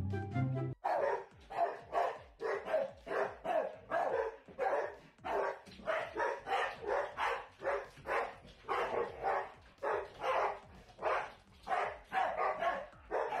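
Large dogs barking over and over in quick, separate barks, about two a second, after a brief snatch of music at the start.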